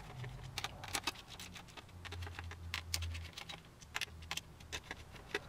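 Small screwdriver turning the laptop heatsink's hold-down screws, giving quick, irregular small metallic clicks and ticks.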